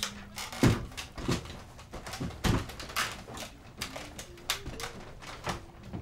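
Thumps and knocks of a person climbing a wooden ladder, with the two heaviest about a second in and midway.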